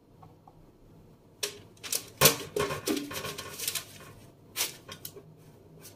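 Scattered sharp knocks and clicks from cutting cauliflower on a wooden cutting board and handling a metal baking tray. The knocks start after a short quiet, and the loudest comes just over two seconds in.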